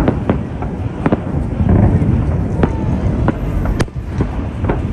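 Fireworks going off: an irregular run of sharp bangs, several a second at times, over a continuous low rumble of bursts.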